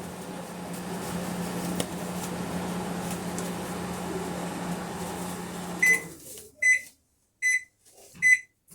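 Panasonic microwave oven running with a steady hum while heating a cup of water, working normally after its faulty capacitor was replaced. About six seconds in the hum stops and the oven beeps its end-of-cycle signal, a string of short high beeps under a second apart.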